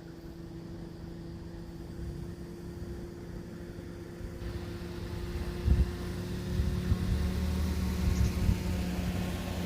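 Vehicle noise over a steady low hum, growing louder about halfway through, with several heavy thumps.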